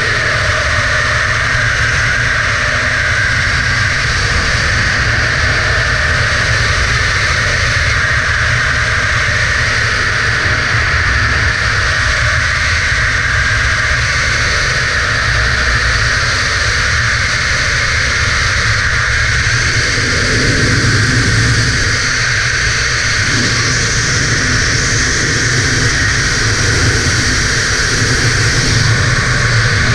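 Steady rush of freefall wind over a helmet-mounted camera, loud and unbroken.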